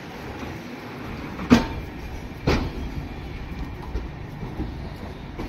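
Indian Railways passenger train pulling out, its rear luggage van rolling away with a steady low rumble. Two sharp metallic clacks about a second apart, the first the loudest, as wheels cross rail joints.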